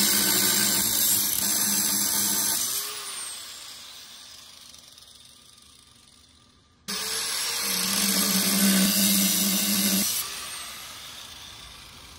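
Angle grinder with a cutoff wheel cutting through the steel tubing of a Shovelhead motorcycle frame, twice. Each cut runs about three seconds, then the grinder is let off and winds down with a falling whine; the second cut starts abruptly about seven seconds in.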